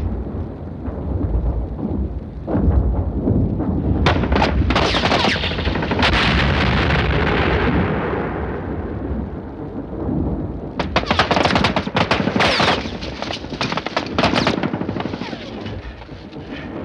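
Battle sound effects of gunfire over a continuous low rumble of artillery and explosions. Bursts of machine-gun fire come in two spells, a few seconds in and again from about eleven to fourteen seconds in, with a long falling hiss after the first spell.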